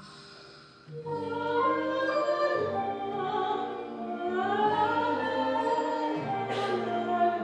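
Contemporary chamber-ensemble music with operatic, choir-like singing. After a quiet first second, a dense swell of held chords comes in, with sliding upper lines over sustained low notes. A brief hissing swish sounds about six and a half seconds in.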